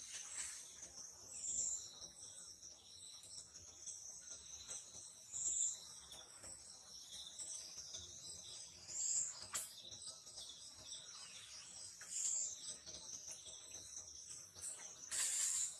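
Steady high-pitched chorus of insects, with short louder high notes repeating every three to four seconds.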